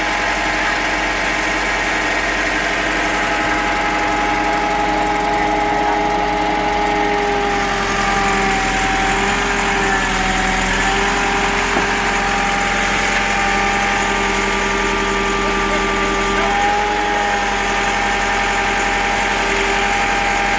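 Tractor engine running steadily, its pitch dipping slightly a couple of times.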